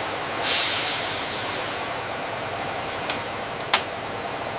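A short burst of hissing air starts about half a second in and fades away over a second, over steady machine-room noise. Near the end come two sharp clicks, the second louder.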